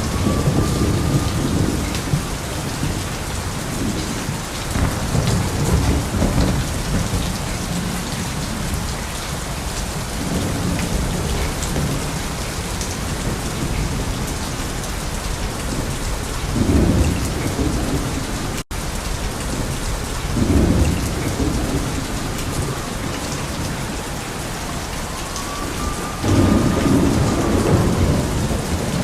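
Steady rain falling, with rolling thunder rumbles that swell several times, the strongest a little past halfway and near the end. A split-second gap in the sound about two-thirds of the way in.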